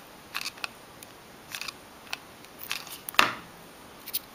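Hot glue gun and a small pine cone being handled close up: a scatter of small clicks and crackles, with one louder sharp click about three seconds in.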